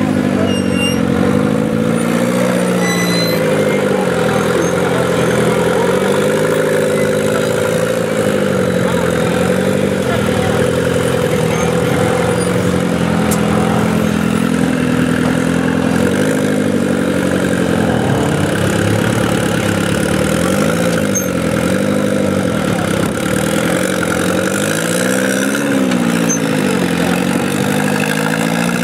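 Rock crawler buggy's engine running at low revs, its pitch rising and dipping every few seconds as the throttle is worked while crawling over rocks.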